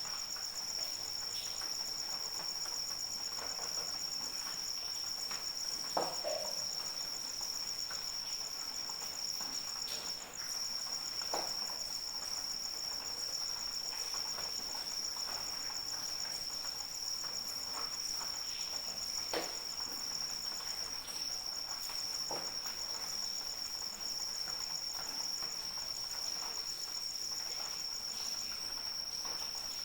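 Crickets chirping steadily: two continuous high trills at different pitches, the higher one finely pulsed, the lower one breaking off for a moment about ten seconds in. Beneath them, faint rain with a few scattered drops.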